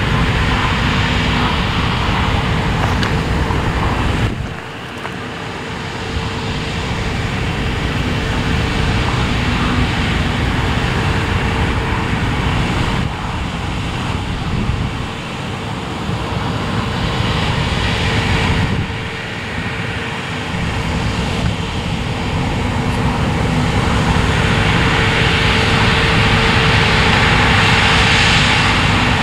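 Claas Lexion 600 TT combine harvester running at working speed while cutting oilseed rape: a loud, steady mechanical din with a constant tone held through most of it. The level dips briefly about four seconds in and again about two thirds of the way through.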